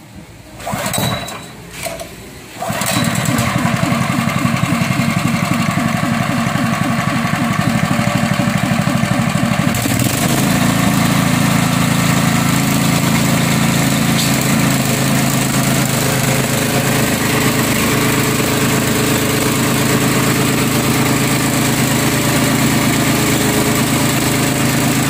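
Honda GX 5.5 hp single-cylinder petrol engine being pull-started, catching about three seconds in, then running steadily while driving a V-twin air compressor pump. About ten seconds in the running sound steps up and grows louder and brighter.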